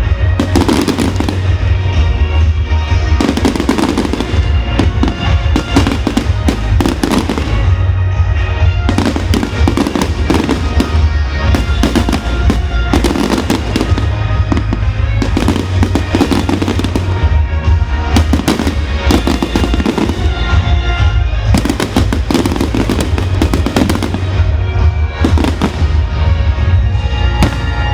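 Fireworks display: a dense, rapid series of bangs and crackles with a heavy low rumble, over loud music.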